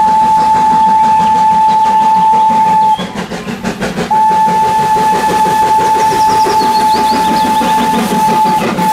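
Steam locomotive dressed as Thomas the Tank Engine sounding its whistle in two long steady blasts, the second starting about a second after the first stops, over the noise of the train running along the track.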